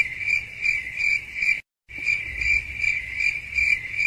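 Cricket chirping sound effect, the comic awkward-silence cue: a steady high chirp pulsing about three times a second. It cuts out completely for a moment about a second and a half in, then starts again.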